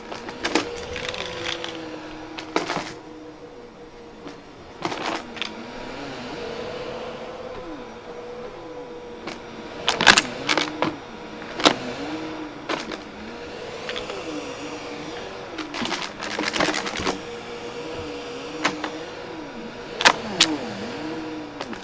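Bissell upright vacuum cleaner running on carpet. Its motor hum holds steady while a lower tone rises and falls as the machine is pushed back and forth. Sharp clicks and rattles, strongest about ten seconds in and near the end, come from hard bits being sucked up.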